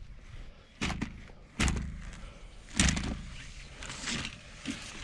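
A few dull thuds, with rubbing and scraping between them, as black poly water line is fed hand over hand down a well casing to lower a submersible pump. The loudest thud comes near the middle.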